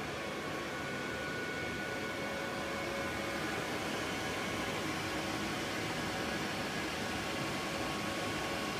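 Steady whirring hum of machine fans, with a few faint steady whining tones over it.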